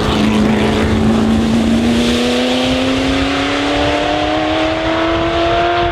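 Racing car engine pulling hard under steady acceleration, its pitch climbing slowly and evenly with no gear change.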